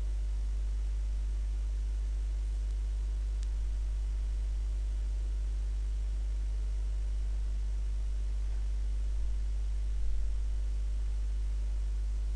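Steady low electrical hum with a faint even hiss beneath it: background noise of the recording setup.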